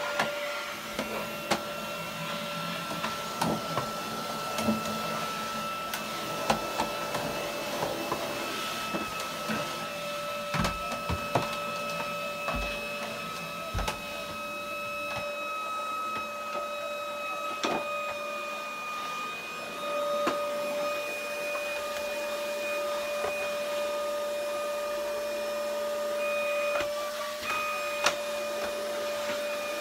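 Canister vacuum cleaner running with a steady high motor whine, with scattered knocks and scrapes as its nozzle is pushed over the floor. Near the end the whine dips in pitch for a moment, then recovers.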